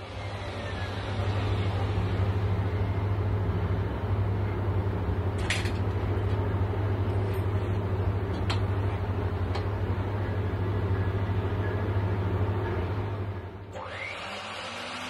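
A power tool's electric motor running steadily, with a strong low hum, from about a second in until it cuts off just before the end, with a few faint clicks along the way.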